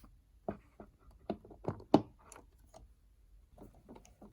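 A run of light clicks and knocks of a stock CPU cooler and its spring-loaded mounting hardware being seated and fastened onto a motherboard, the loudest knock about two seconds in.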